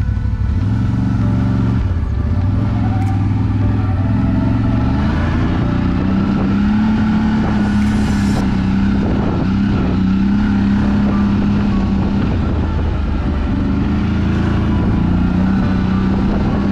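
CFMOTO CForce ATV engine running as the quad climbs and crawls along a trail, its pitch rising and falling with the throttle.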